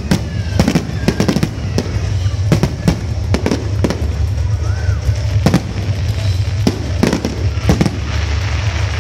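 Aerial fireworks display: shells bursting in irregular quick succession, a dozen or so sharp bangs over a steady low rumble.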